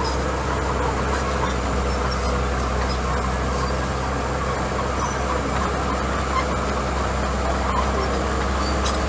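Small crawler bulldozer's diesel engine running steadily as it pushes and spreads gravel, with a constant low hum and noise that does not change in level.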